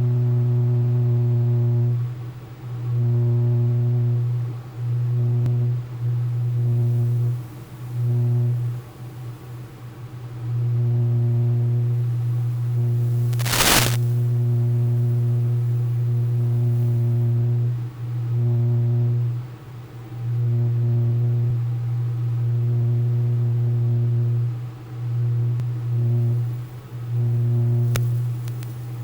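Low, steady electronic buzz at one fixed pitch that cuts in and out irregularly, with one sharp crackle about halfway through.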